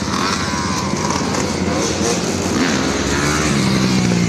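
Dirt bike engines revving, the pitch rising and falling.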